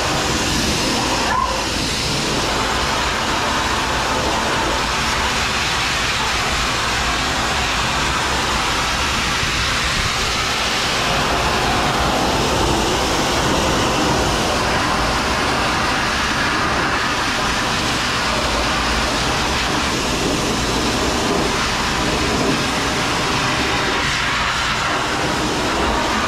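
Dog grooming dryer running, a loud, steady rush of blown air.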